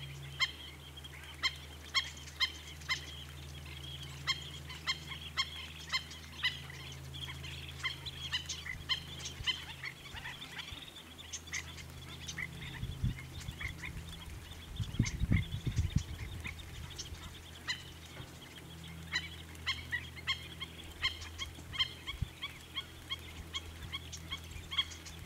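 Wading birds in a marsh giving a long run of short, sharp calls, about one or two a second, over a steady low hum. A brief low rumble comes about two-thirds of the way through.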